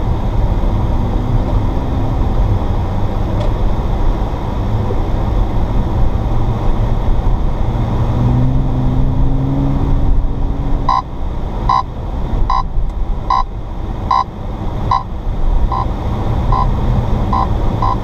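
Steady cabin rumble of an Audi S4 driving on a snow-covered road. About eleven seconds in, a dash-mounted radar detector starts beeping, short high tones about once a second that quicken to several a second near the end: a K-band radar alert.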